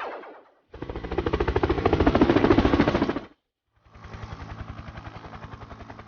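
Cartoon sound effect of rapid mechanical rattling, about ten beats a second, in two stretches. The first lasts over two seconds and is loud; after a brief gap a quieter one follows with a low steady hum under it.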